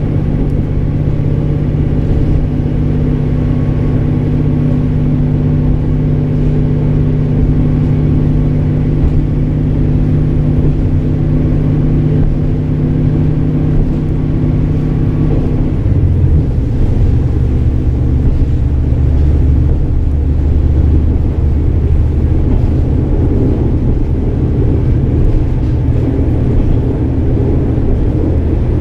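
Running sound of a KiHa 47 diesel railcar heard on board: the underfloor diesel engine drones steadily over the rumble of wheels on rail. About halfway through, the engine note drops to a lower pitch.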